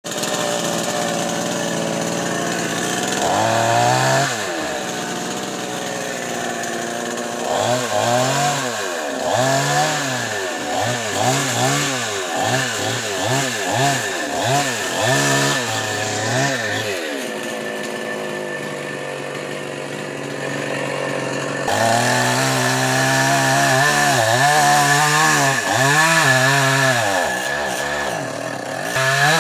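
Small two-stroke petrol chainsaw cutting tree branches, its engine revving up and falling back about once a second in repeated bursts, with a steadier stretch in the middle.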